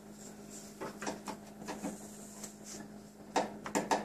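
Scattered clicks and knocks of a flat-screen TV and its cardboard packing being handled, louder and more frequent near the end.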